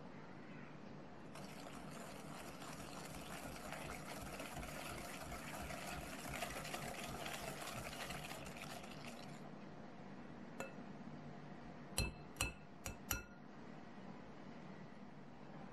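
Wire balloon whisk beating egg yolk into creamed butter and sugar in a glass bowl, a steady rapid scraping and ticking for about eight seconds. Near the end the metal whisk clinks sharply against the glass bowl four times.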